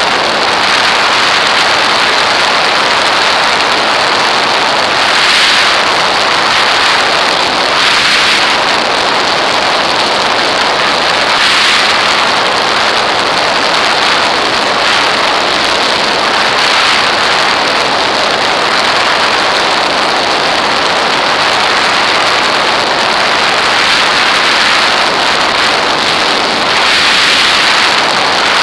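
Loud, steady rush of airflow over a camera mounted on an aircraft's wing in flight, swelling briefly every few seconds.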